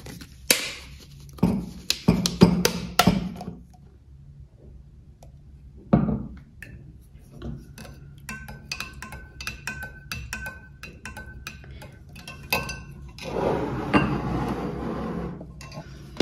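A few clicks as a plastic bottle cap is twisted open, then a measuring spoon clinking repeatedly against a glass vase while a liquid fungicide is stirred into water, the glass ringing faintly between taps. A stretch of rustling near the end.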